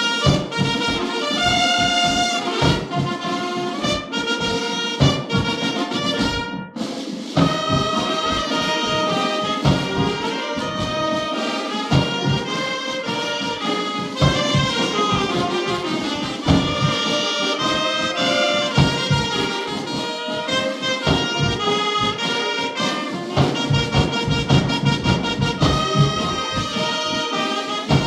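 Persian military march played by a brass band, trumpets and trombones over a steady drumbeat, with a brief break about six and a half seconds in.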